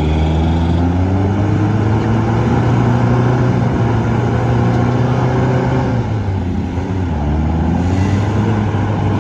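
Ford M151A2 jeep engine held at high revs under heavy load as it strains against a tow chain, dipping briefly about six seconds in and then climbing back.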